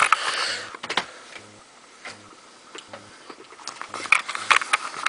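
A carpet python's short breathy huff, a hiss, in the first second, then scattered clicks and knocks of the camera being handled, growing busier near the end.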